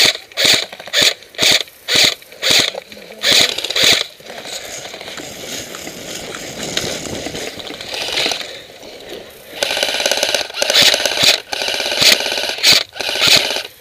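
Echo 1 M14 SOCOM airsoft electric rifle firing a steady string of semi-automatic shots, about two a second, each a sharp mechanical clack of the gearbox cycling. A few seconds of rustling noise follow, then more shots in quicker succession over the whir of the motor.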